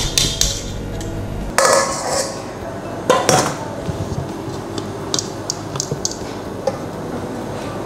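Kitchen utensils clinking, knocking and scraping against a mixing bowl while cake batter is mixed: a few sharp knocks, a longer scrape, then a quick run of light taps about five seconds in.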